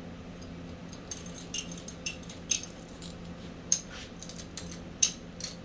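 Irregular light metallic clicks and clinks, a few sharper ones about two and a half and four and five seconds in, over a steady low hum.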